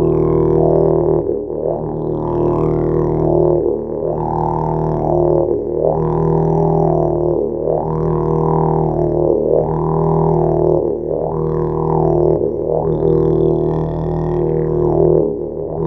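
A 9-foot, 15 kg didgeridoo playing a continuous low drone. Its tone is swept up and down by the player's mouth shaping in a wah-like pattern about every two seconds.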